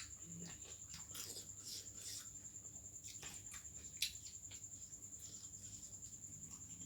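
A person eating: chewing and lip smacks with small crisp clicks, one sharper click about four seconds in, over a faint steady high-pitched whine.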